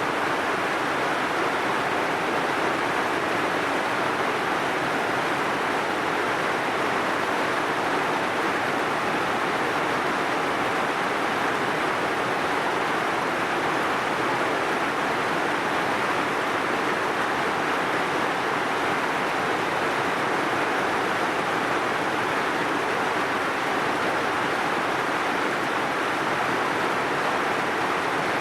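Heavy rain falling steadily: an even, unbroken hiss with no separate drops or thunder standing out.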